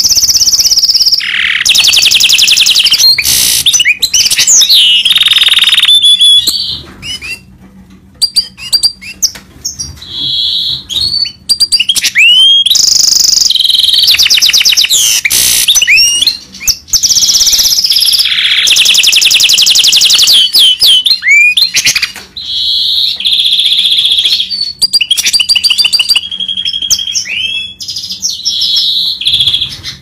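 Mule goldfinch, a goldfinch × canary hybrid, singing a long song of rapid trills, buzzy rolls and quick whistled notes, broken by short pauses.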